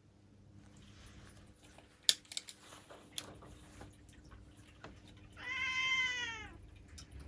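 A domestic cat gives a single meow lasting about a second, its pitch dropping at the end. Earlier, a few sharp clicks, the loudest sound here, come about two seconds in.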